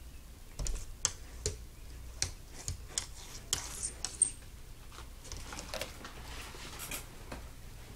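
A cat pawing at window glass: a quick run of sharp claw taps with some scratching on the pane for the first half, then softer taps.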